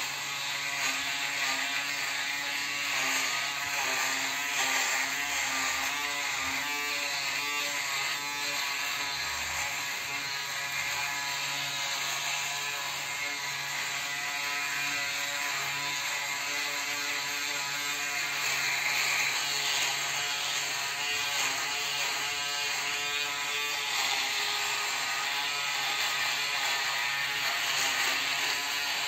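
Braun Series 3 ProSkin 3010s electric foil shaver running with a steady buzzing hum, its cutters moving over beard stubble on the jaw and neck.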